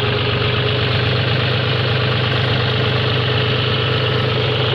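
John Deere four-wheel-drive tractor's diesel engine running steadily under load as it drags a land-levelling blade through loose tilled soil, heard close up from the driver's seat.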